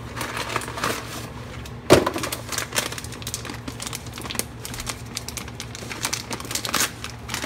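Crinkling and rustling of a plastic packet of stuffing mix being handled, with many small clicks and one sharp knock about two seconds in.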